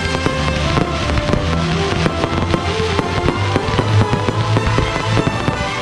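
Fireworks display: a rapid run of bangs and crackling from bursting shells and rising comets, with music playing along.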